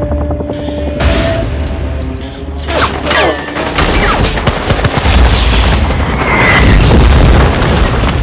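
War-film trailer soundtrack: dramatic music with bursts of gunfire and heavy booms, dense strokes from about three seconds in and loudest a little before the end.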